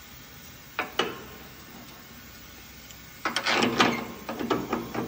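Parts of a belt sander being handled by hand: two sharp clicks about a second in, then a burst of clattering and rattling from about three seconds in as the belt and its fittings are worked on.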